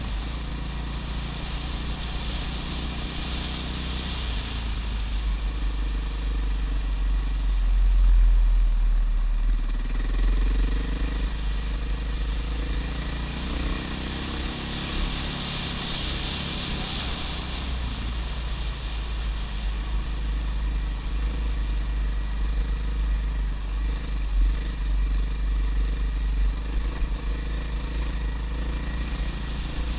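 Dirt bike engine running as it is ridden along a dirt trail, its note rising and falling with the throttle, under a heavy low rumble of wind on the camera's microphone.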